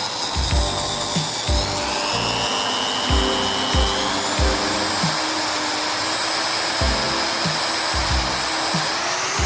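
Background music with a steady beat, over an electric power tool running with a steady high whine that shifts up in pitch about two seconds in and again near the end.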